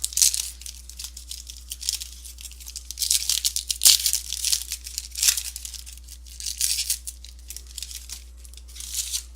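Trading-card pack wrappers being torn open and crinkled, in repeated rustling bursts with small clicks.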